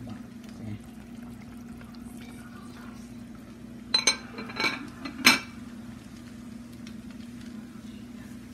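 Three sharp clinks of kitchenware, dishes or utensils knocking together, about four to five and a half seconds in, over a steady low kitchen hum.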